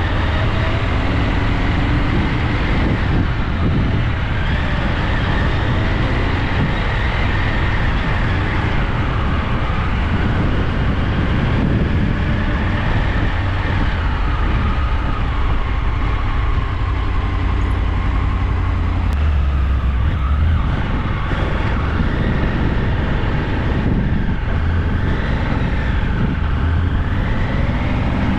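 Steady vehicle noise: a loud low rumble with a whine that slowly wanders up and down in pitch.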